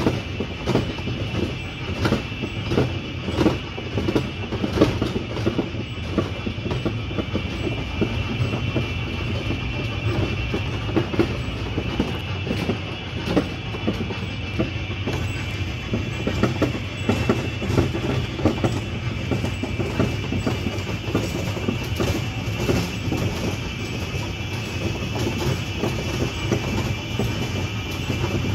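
Small ride-on visitor train rolling along, its wheels clicking and rattling irregularly over the track above a steady low rumble.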